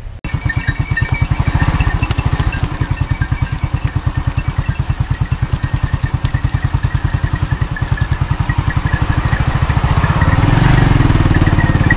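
Small motorcycle's engine running with an even, rapid exhaust beat as the bike rolls slowly along a dirt track, growing louder about ten seconds in.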